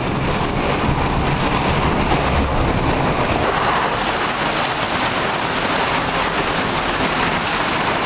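Hail and heavy rain pelting down in a hailstorm: a dense, steady noise of many impacts. Its character shifts slightly about four seconds in.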